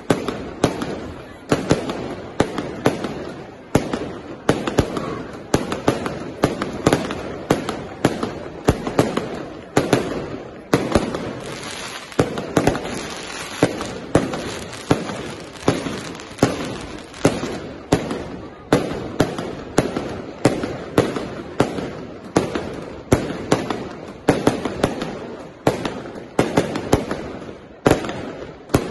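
Aerial fireworks display: a steady barrage of shell bursts, about two loud bangs a second, each echoing away, with continuous crackling between them that thickens for a few seconds in the middle.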